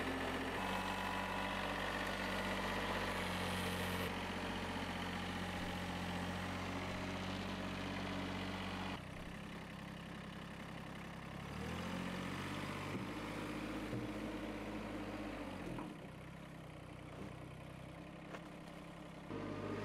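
Compact diesel tractor engine running steadily. It rises in pitch about twelve seconds in, and its level drops abruptly at about nine and sixteen seconds.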